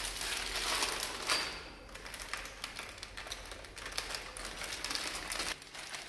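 Clear plastic hardware bags crinkling and rustling in the hands, with many small clicks. It is busiest in the first two seconds and sparser after.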